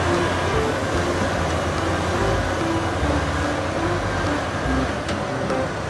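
Caterpillar 6015B hydraulic mining excavator working steadily, its diesel engine and hydraulics running as it empties its bucket into a dump truck and swings back.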